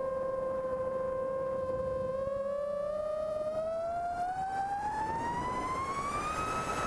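Brushless motors and three-blade props of a six-cell FPV quadcopter whining, heard from a camera on board. The pitch holds steady, then rises steeply over about four seconds as the quad goes to full throttle on a speed run, and levels off at the higher pitch near the end.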